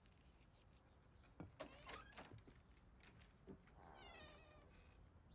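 Near silence: quiet room tone with a few faint soft clicks about one and a half to two seconds in, and a brief faint squeak about four seconds in.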